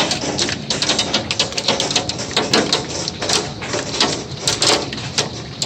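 Heavy hail pelting down: a dense, irregular clatter of hailstones striking hard surfaces.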